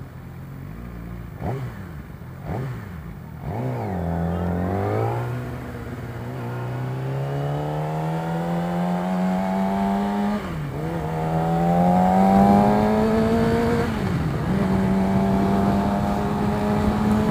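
Yamaha R6 inline-four engine through an Akrapovic exhaust: a few short throttle blips, then a long pull with the pitch rising steadily. Two upshifts drop the revs, about ten and fourteen seconds in, before the engine settles at steady revs.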